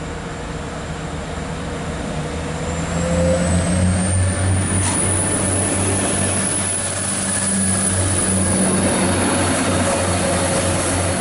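Class 175 diesel multiple unit pulling away from the platform, its diesel engines running with a steady low hum. A high whine rises in pitch a few seconds in, and the sound grows louder as the coaches draw past.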